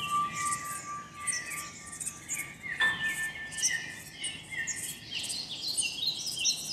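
A night soundscape of dense bird and insect chirping, many short falling chirps, over a steady high tone that jumps higher about three seconds in and drops out near the end.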